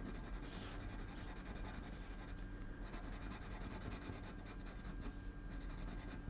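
Caran d'Ache Luminance coloured pencil scribbling lightly over Clairefontaine Pastelmat. It makes a faint, scratchy rasp of quick short strokes that grow denser about halfway through, laying an even base layer of colour over the drawn tongue.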